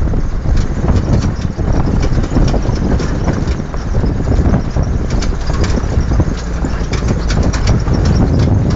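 Vehicle driving over a rough gravel road: a steady low rumble of tyres and wind, with frequent quick clicks and knocks from stones and rattling parts.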